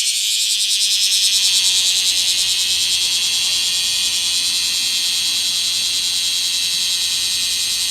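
Cicadas chorusing: a loud, steady, high-pitched buzz.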